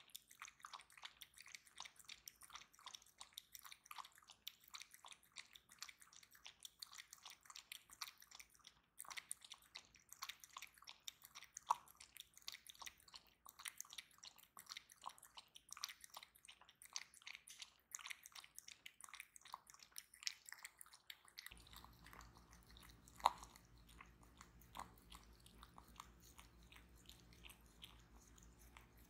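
Yorkshire terrier lapping milk from a glass dish: a faint, quick run of small wet licking clicks, several a second.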